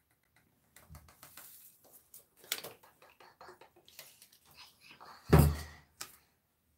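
Paper seed packet crinkling and being tapped as seeds are shaken out into a palm, a run of small light clicks and rustles. One louder thump comes about five seconds in.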